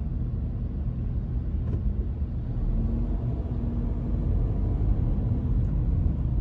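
Steady low rumble of a car driving along a city road, engine and tyre noise heard from inside the cabin.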